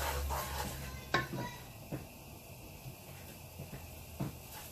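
Wooden spoon stirring a butter-and-flour roux in a nonstick frying pan, the rapid scraping stopping about a second in, followed by one sharp knock and a few lighter knocks.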